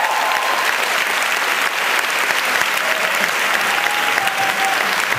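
Hall audience applauding steadily, many hands clapping at once.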